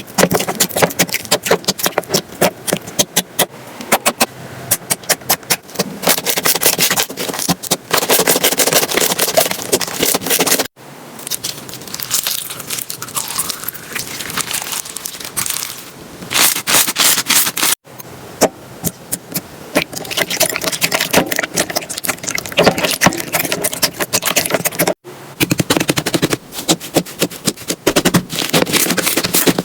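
Slime being squished and pressed by hand, giving dense, rapid crackling and popping clicks. The sound breaks off sharply three times where one clip cuts to the next.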